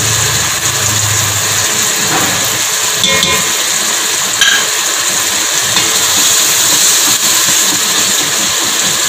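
Onion-tomato masala sizzling steadily as it fries in oil in a pot, at the stage where the oil has separated and the masala is fully fried. One brief click a little over four seconds in.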